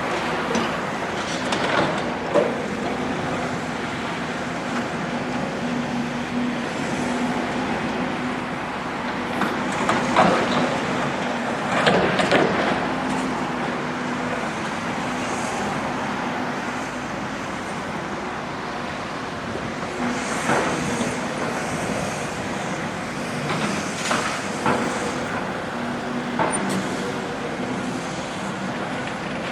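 Demolition excavator's diesel engine running steadily, with several louder rough bursts of noise as it works, the loudest about ten to twelve seconds in.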